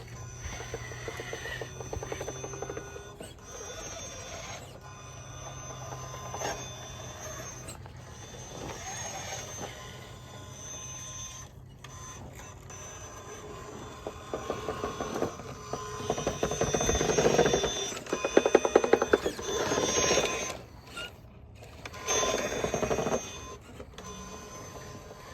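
Radio-controlled rock crawler's electric motor and gear drivetrain whining in stop-start bursts as it crawls, with rapid gear chatter. The loudest runs come in the second half.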